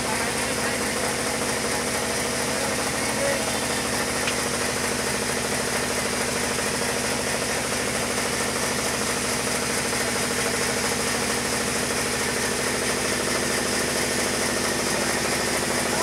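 Band sawmill running steadily, a constant machine drone with a steady hum as a large log is fed to the blade.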